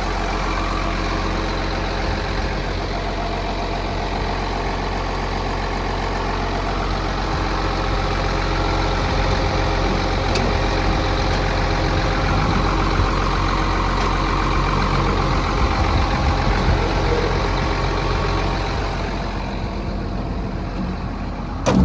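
Case CX330 excavator's diesel engine idling steadily, growing a little louder in the middle, with a short sharp knock near the end.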